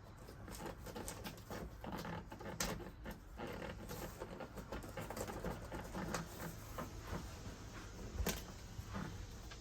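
Irregular small clicks, taps and rustles of hands working with adhesive strips and their backing: placing and pressing them down, with a sharper tap about eight seconds in.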